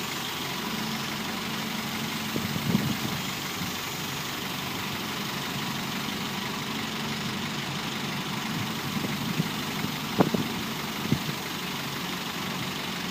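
Wheel loader's diesel engine running steadily, with a few short sharp knocks about two and a half seconds in and again around ten seconds in, the loudest near ten seconds.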